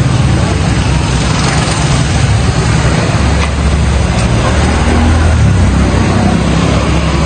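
Street traffic: motorcycle and car engines passing close by, giving a loud, steady low rumble.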